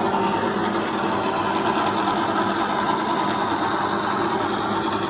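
Victoria universal milling machine running steadily: a continuous mechanical whir with a few steady tones, unchanging throughout.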